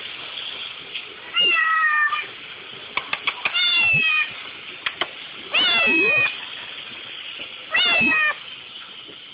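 Kitten meowing four times, each cry falling in pitch; the kitten is crying over the dishes it is not allowed to lick. A quick run of sharp clicks comes just before the second meow.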